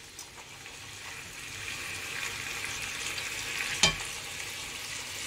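Vegetables, chicken and prawns sizzling as they stir-fry in a non-stick wok, the hiss growing louder over the first couple of seconds as shredded carrot and bean sprouts go in and are stirred. One sharp knock against the pan near the end.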